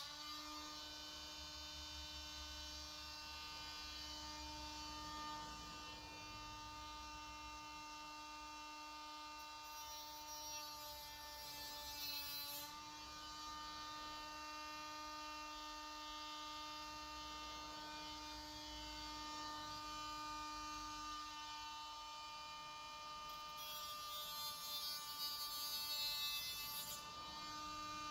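Small cordless handheld rotary tool running steadily with a high electric whine, its pitch dipping briefly about twelve seconds in as it is pressed into the plastic grille frame. A rougher grinding hiss comes in twice while it cuts, the second time near the end.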